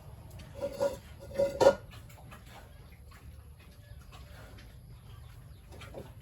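Two short farm-animal calls about a second apart, with faint scattered clicking.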